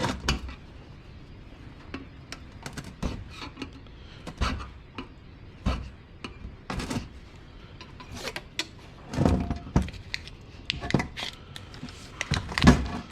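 Irregular clicks, taps and light scrapes of a screwdriver and loose metal and plastic parts being handled while a benchtop centrifuge is taken apart. There are a few louder clusters of knocks rather than a steady rhythm.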